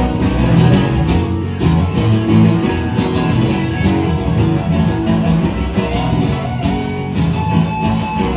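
Live band music: an instrumental passage led by guitar.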